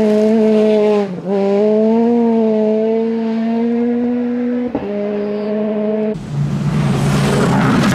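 Rally car engine running hard at high revs on a gravel stage, its pitch climbing slowly with two sharp brief dips at gear changes, about a second in and near five seconds in. About six seconds in the sound switches abruptly to another rally car, its engine lower-pitched under a loud rushing noise.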